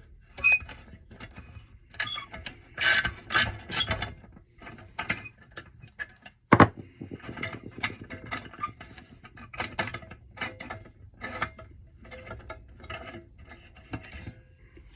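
Hand socket ratchet clicking in short irregular runs as bolts are backed out of a small engine's cover, with a sharp metal knock about six and a half seconds in.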